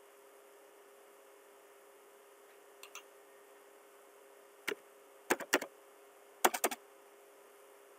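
Keystrokes on a computer keyboard typing a short command: a sharp click, then two quick keystrokes, then a quick cluster of key clicks, with two fainter clicks a little earlier. A faint steady hum runs underneath.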